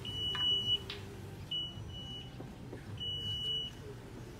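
Toyota Alphard power tailgate's warning buzzer sounding three high, steady beeps, each just under a second long, while the tailgate closes under power, with a low motor hum underneath.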